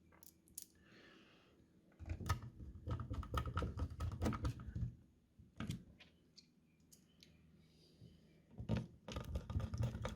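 Screwdriver driving screws into a 3.5-inch hard drive in its metal drive sled: two bouts of rapid clicking. The first starts about two seconds in and lasts about three seconds; the second starts near the end.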